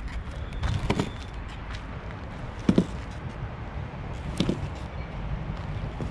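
Plastic cruiser skateboard rolling on soft wheels over concrete, a steady low rumble, with a few sharp knocks from the board, the loudest about three seconds in.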